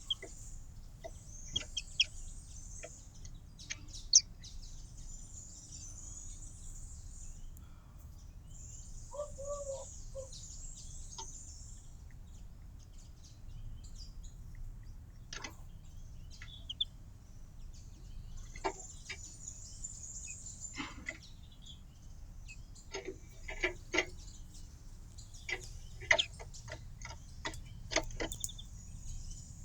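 Small garden birds chirping and twittering in high bursts that come and go, with many sharp clicks and taps scattered through, and a short lower call about nine seconds in.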